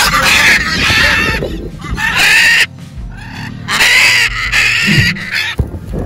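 Blue-and-gold macaw giving loud, harsh squawks, three or four in a row, with music in the background.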